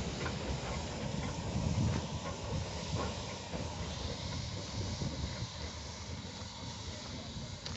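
Peckett 0-4-0 saddle-tank steam locomotive moving slowly, with a steady hiss of steam and an uneven low rumble underneath.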